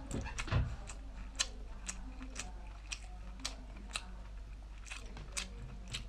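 Close-up chewing of king crab meat: scattered wet mouth clicks and smacks, irregularly spaced, over a steady low hum.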